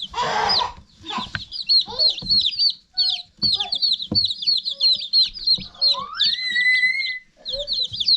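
A brood of Red Ranger meat chicks peeping rapidly and continuously, many short high chirps overlapping. A rustle in the first second and a few sharp knocks break in.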